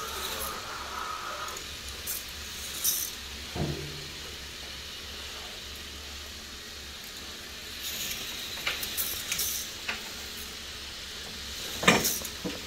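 K'NEX roller coaster models running: a steady whirring hiss of the motorised chain lifts and plastic cars on the track, with scattered clicks and rattles and a sharp clack near the end.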